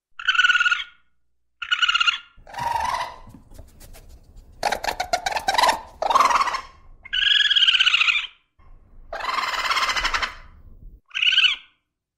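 Raccoon calls: about eight short chirping, trilling and screechy calls separated by brief silences, with a quick rattle of clicks near the middle.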